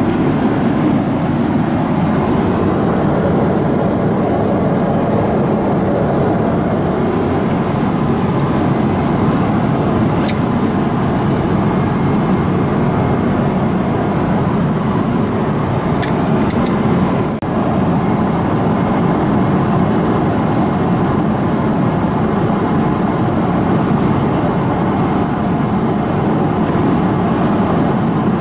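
Steady cabin noise inside a Boeing 777-300ER in flight: a constant rush of airflow and engine noise. A few faint clicks come through a few seconds in and again past the middle.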